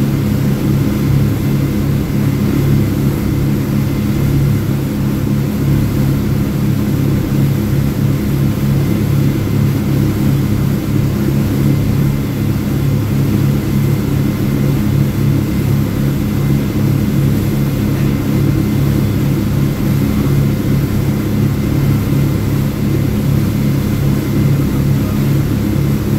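Speedboat's engines running steadily under way, a loud even drone with the rush of water and wind, heard from the helm inside the cabin.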